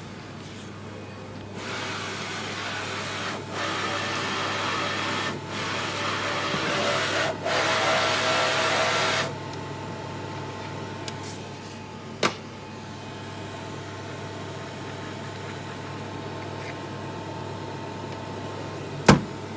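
Ortho Vision blood bank analyser running: a loud mechanical whir for about eight seconds, then its steady hum. Sharp plastic clicks come in as sample tubes and racks are handled in the sample rotor, the loudest near the end.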